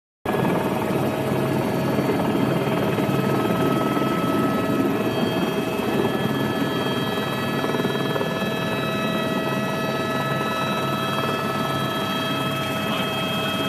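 Turbine helicopter's engine and rotor running steadily, heard from inside the cabin: a steady high whine of several tones over a dense rushing drone.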